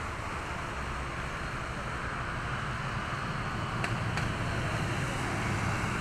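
Boeing 787-8's twin turbofans at takeoff thrust, heard from a distance as a steady jet roar while the airliner lifts off and climbs away. The low rumble grows a little louder about halfway through, and two faint clicks come about four seconds in.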